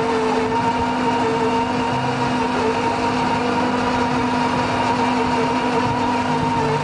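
An engine running steadily at idle, a constant hum with a few held tones.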